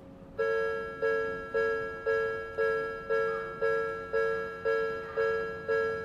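Odakyu-type electronic level-crossing alarm starting about half a second in and ringing a repeated chiming ding about twice a second, each strike fading before the next. A crossing alarm sounds when a train is approaching.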